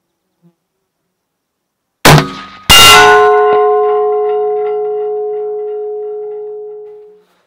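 A 6.5-284 rifle shot, then about half a second later the bullet striking a hanging steel plate target. The plate rings with several clear tones that fade over about four seconds.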